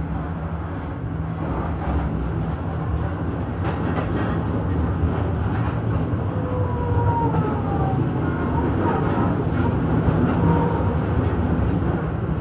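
Electric commuter train on the Ome Line running along the track: a steady low rumble and hum with occasional clicks of the wheels. Faint whining tones glide slightly downward in the middle.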